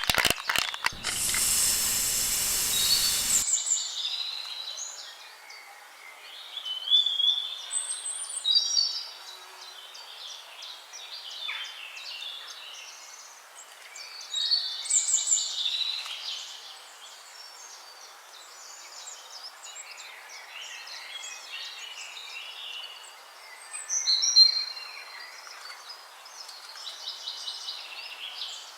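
Several songbirds chirping and trilling in short high phrases, with louder bouts of song every few seconds. About a second in, a loud hiss of noise lasts around two and a half seconds and cuts off suddenly.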